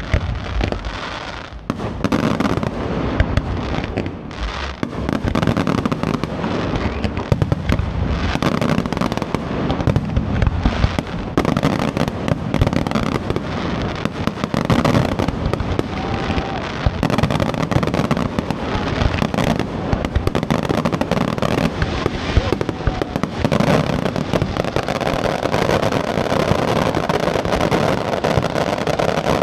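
Fireworks display: a rapid, unbroken series of shell bursts and crackling, several bangs a second.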